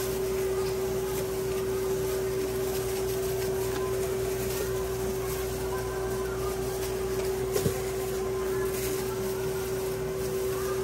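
Steady machine hum at one fixed pitch over a low noise haze, with a soft click about seven and a half seconds in.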